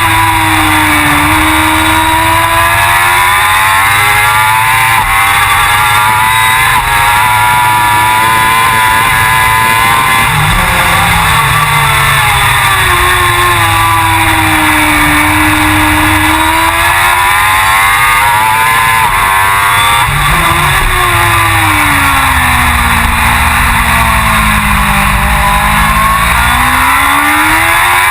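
Suzuki GSX-R1000 World Superbike's inline-four engine at racing speed, its revs climbing and falling over several seconds at a time.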